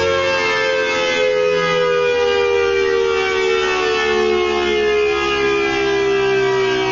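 Tornado siren sounding with its chopper set to level 2: a loud, steady wail of several tones together, slowly falling in pitch.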